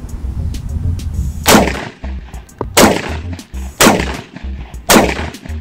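Four rifle shots from a CSA VZ58 in 7.62×39, fired about a second apart, each dying away quickly. The bullets strike a cast iron BBQ plate, which gives a dull smack with no ring of steel.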